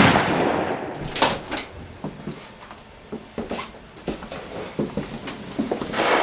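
A single gunshot at the start, ringing and dying away over about a second. Then come a couple of sharp knocks, scattered light clicks and another sharp burst near the end.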